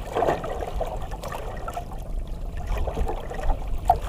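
Water sloshing and lapping against the hull of a small outrigger boat, over a low rumble.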